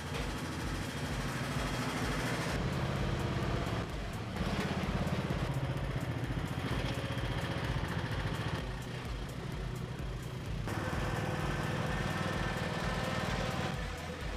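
MTD Silvertrac ride-on tractor mower's engine running, with its sound changing abruptly every few seconds.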